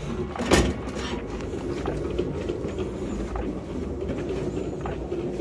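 Casters of a heavily loaded speaker cart rolling and rattling across the doorway threshold and hallway floor, with one sharp loud knock about half a second in.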